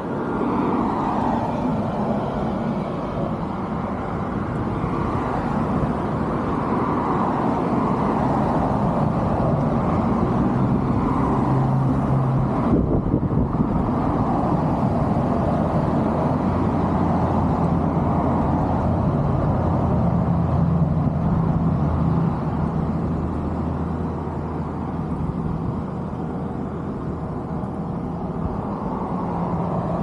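Road traffic noise: a continuous vehicle rumble that swells and eases over several seconds, with a low engine hum in the middle stretch.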